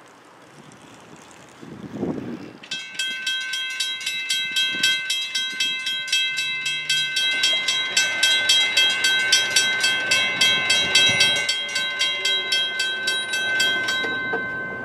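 Railroad grade-crossing warning bell starting up and ringing in rapid, even strokes, about three a second, as the crossing signals activate for an approaching train. The strokes stop shortly before the end.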